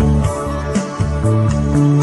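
A song playing, carried by bass and guitar with drums keeping the beat; the bass line changes note every half second or so.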